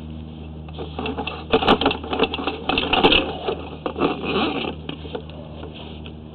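Sewer inspection camera's push cable being pulled back quickly out of the line, a fast irregular rattling clatter loudest in the middle few seconds, over a steady low electrical hum.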